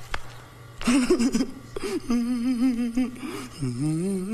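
A man's voice making exaggerated non-speech sounds: a sharp gasp about a second in, a few short vocal noises, then two drawn-out, wavering whimpers. A faint steady low hum runs beneath.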